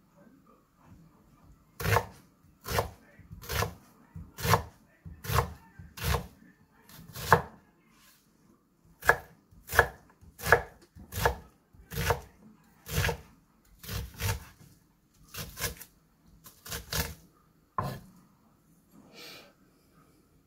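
Kitchen knife chopping an onion on a thick wooden cutting board. Slow, even strokes, a bit more than one a second, each a sharp knock of the blade on the wood. The strokes start about two seconds in and pause briefly near the middle.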